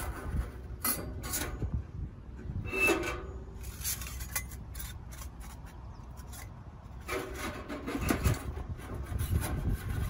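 Thin metal parts of a titanium wood stove's air-intake damper and spark-screen mesh scraping, rubbing and clinking as gloved hands try to seat them, which will not stay fixed in place. Wind buffets the microphone with a steady low rumble.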